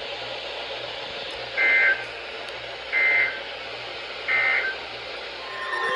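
Three short buzzy data bursts, about a second and a half apart, over steady radio hiss: the EAS end-of-message codes of a NOAA Weather Radio broadcast, closing the severe thunderstorm warning. An alarm tone starts right at the end.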